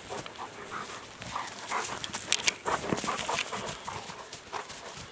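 Maremma dogs scrambling over round hay bales: irregular rustling and crunching of dry hay, busiest about two to three and a half seconds in, with the dogs panting.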